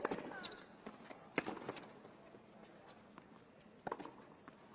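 Tennis rally on a hard court: a handful of sharp pops of the ball off racquet strings and the court, the loudest at the start and about a second and a half in, two more close together near the end.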